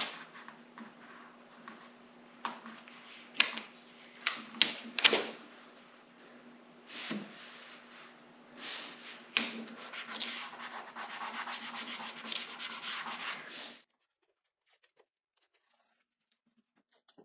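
Paper and painter's tape being rubbed and smoothed down by hand: scattered rustles, crinkles and scrapes, with a longer stretch of steady rubbing near the end. The sound then cuts off abruptly into near silence.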